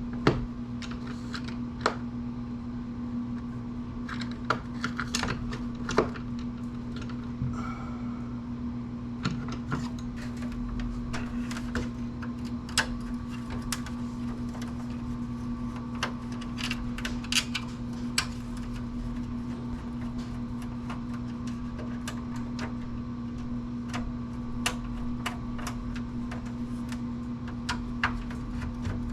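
Scattered sharp clicks and light metal clinks of hand tools and screws on a computer's metal chassis as it is being unscrewed and taken apart, over a steady low hum.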